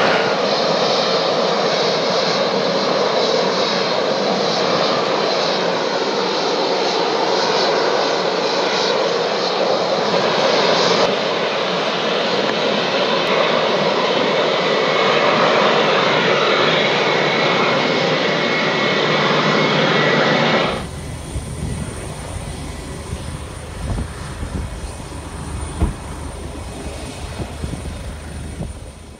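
Embraer KC-390's twin turbofan engines: a loud, steady jet roar for about twenty seconds. It then cuts suddenly to quieter engine noise with a low rumble underneath.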